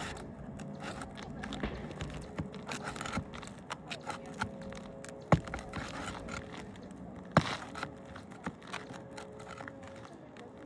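Hand tool scraping and prying at roofing nails under asphalt shingles, with small clicks throughout and two sharp knocks about two seconds apart near the middle. The nails are driven firmly and are hard to work loose.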